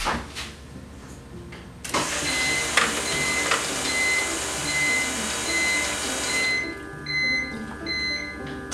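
Electric fuel pump running as the new fuel system is purged, with fuel rushing out of the open line into a plastic jug as a loud hiss. The hiss starts about two seconds in and cuts off suddenly about two-thirds of the way through, leaving a steady pump whine. A regular short beeping runs through it.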